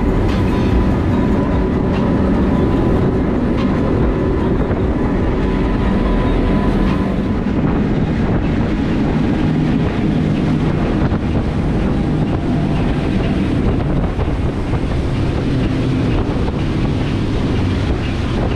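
Boat under way: the engine runs steadily with a loud, constant rumble, and wind buffets the microphone.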